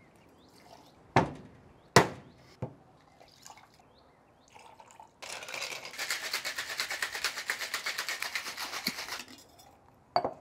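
Cocktail shaken over ice in a two-piece metal Boston shaker: a few sharp clinks early on, then ice rattling rapidly inside the tins for about four seconds, and a single knock near the end as the tins are parted.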